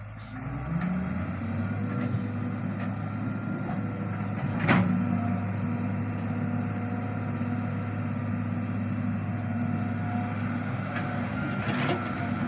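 Diesel engine of a Solar 130W wheeled excavator running steadily under hydraulic load as it swings and digs, picking up about half a second in. A sharp knock comes about five seconds in and another near the end.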